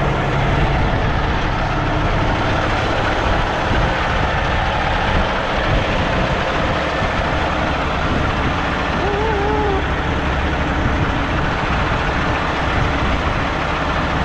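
Heavy truck's diesel engine idling steadily under a loud, even rushing noise, with a short wavering tone about nine seconds in.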